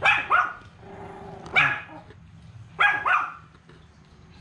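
Small dog barking in short, high yaps: two quick ones, a single one, then another quick pair.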